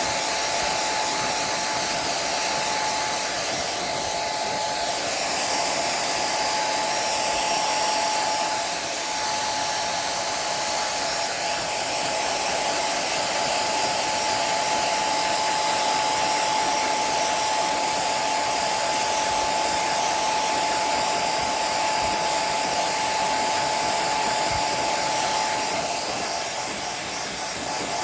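Hand-held hair dryer running steadily: a constant blowing noise with a steady whine, dipping slightly a couple of times as it is moved.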